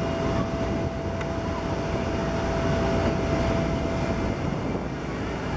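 Jet airliner's engines running at taxi power as it rolls past: a steady rumble with a steady whine that fades out about four seconds in.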